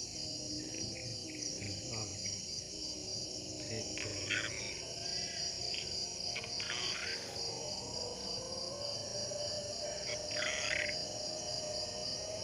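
Chorus of crickets and other insects in a banana garden: a steady, fast-pulsing high trill, with a few short chirps from other creatures rising over it about a third of the way in, past the middle, and near the end.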